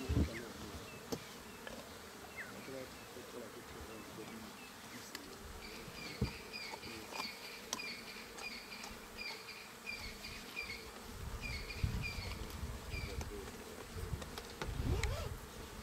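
Insects buzzing, with a high, short two-note chirp repeated about twice a second through the middle stretch. A few dull low thumps come later on.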